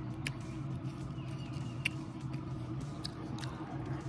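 A person chewing food close to the microphone, with a few sharp mouth clicks, over a steady low background hum.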